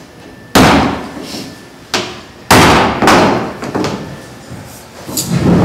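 Hammer striking wood on a workbench: about five sharp, irregularly spaced blows, each ringing briefly in the room.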